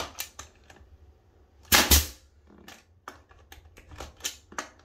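18-gauge pneumatic brad nailer driving a brad into quarter-round trim: one sharp shot about two seconds in, with light clicks and knocks as the tool is set against the molding.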